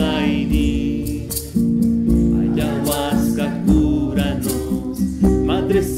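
Ayahuasca healing song (icaro) with acoustic guitar strumming and a sung vocal line. The chanting returns about five seconds in.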